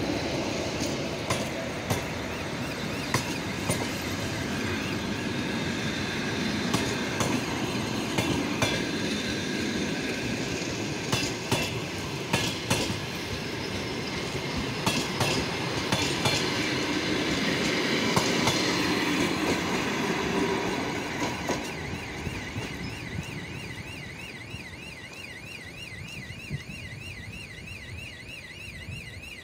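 Passenger coaches rolling past at speed, the wheels clicking over rail joints with a steady rumble that fades as the train moves away. From about two-thirds of the way in, a rapidly warbling electronic level-crossing warning signal sounds.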